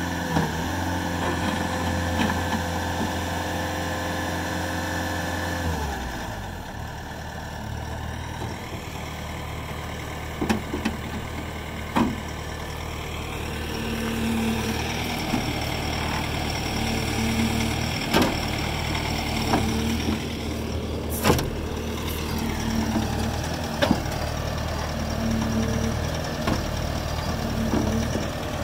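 Bobcat T590 compact track loader's diesel engine running at high idle, dropping to a low idle about six seconds in and then idling steadily. Occasional sharp clicks or knocks sound over it.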